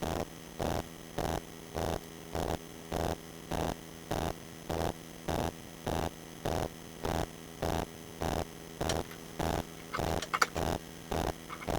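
Hot air rework gun running: a steady electrical hum with a pulsing whoosh about twice a second. A few light clicks about ten seconds in.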